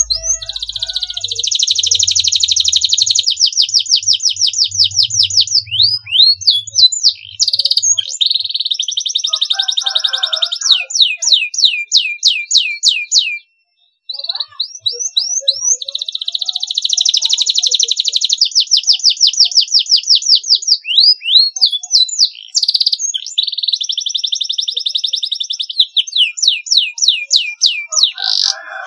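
Domestic canary singing: long fast trills alternating with series of quick sweeping whistled notes. The song breaks off briefly about halfway through, then starts again.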